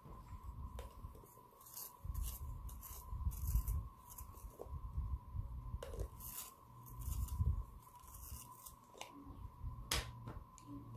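Red coloured pencils being sharpened in a pencil sharpener: scraping spells of the blade shaving wood and lead, coming and going several times, with a sharp click near the end.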